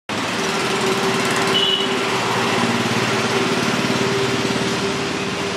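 Small engine running steadily at an even speed.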